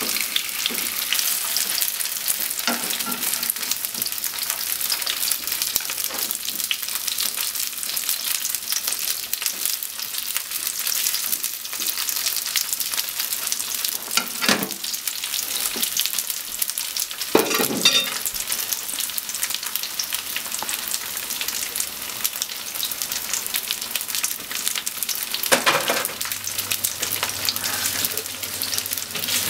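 Cubes of atsuage (thick deep-fried tofu) sizzling steadily in hot oil in a frying pan. A few louder knocks and scrapes of a utensil against the pan come as the pieces are turned, about halfway through and near the end.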